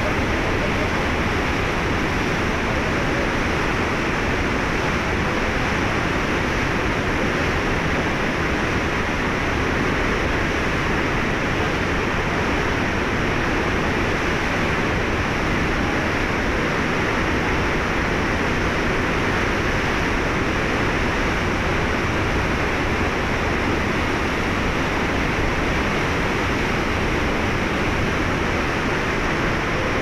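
Swollen, muddy river in flood rushing through rapids over boulders: a loud, steady rush of churning water with no let-up.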